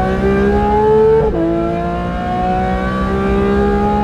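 Porsche 911 GT3's 4-litre naturally aspirated flat-six, with stainless long-tube headers and a titanium cat-back exhaust, accelerating hard. Its pitch climbs, drops once with an upshift about a second in, then climbs again.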